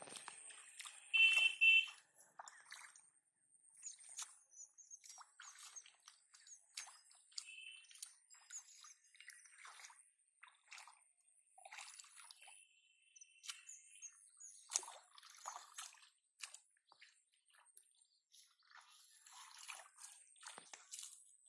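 Hands splashing and squelching in shallow muddy water, with irregular drips and small sloshes. About a second in, a brief high-pitched tone is the loudest sound, and a few fainter short tones follow later.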